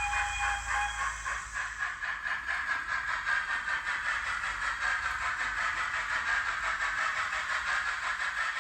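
Recorded steam-locomotive sound from a model locomotive's sound decoder, played through its small onboard speaker: rhythmic exhaust chuffs over a steady hiss, with a held whistle note ending about a second in.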